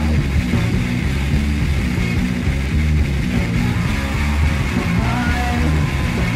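Punk rock song with electric guitars, at a steady full level; a higher sustained guitar line comes in about five seconds in.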